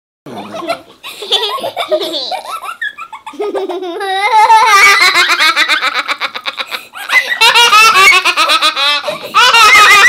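A young child laughing hard. Scattered giggles in the first few seconds build into loud, continuous belly laughter from about four seconds in, with two brief breaks.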